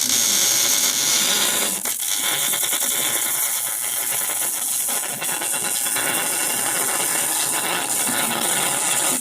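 Electric arc welding a new flex pipe into a car's exhaust downpipe: a steady, loud crackling hiss.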